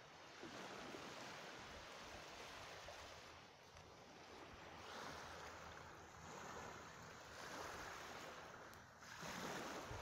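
Faint wash of small waves lapping on a sandy beach, a soft surf noise that swells and eases every two or three seconds.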